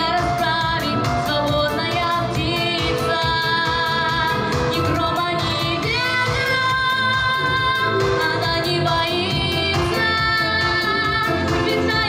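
A girl singing a pop song through a microphone, amplified, over backing music with a steady beat.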